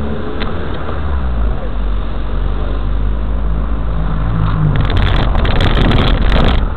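Car engine and road noise heard from inside the cabin through a dashcam's microphone, a steady low rumble. In the last two seconds a dense run of sharp crackling clicks sits on top of it.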